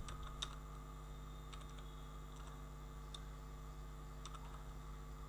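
Computer keyboard keystrokes: a few faint, widely spaced key clicks, typing the firewall reload command, over a steady low electrical hum.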